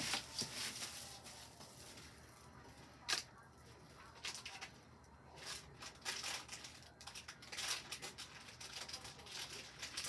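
Rustling and scattered light clicks from craft supplies and packaging being handled, with one sharper click about three seconds in.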